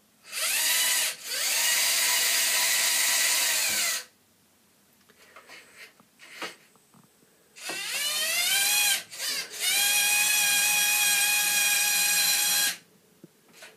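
Lego NXT motor and its gear train whining as they run, in two spells of several seconds each. The second spell starts with a rising whine, then holds a steady pitch, and each stops abruptly.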